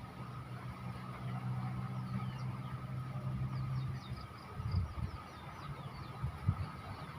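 A motor engine running steadily with a low hum that drops away about four seconds in, with short high falling chirps over it.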